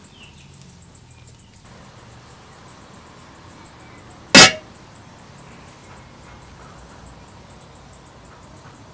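Aluminium lid set down on a large cooking pot with a single sharp metallic clang about four seconds in, ringing briefly.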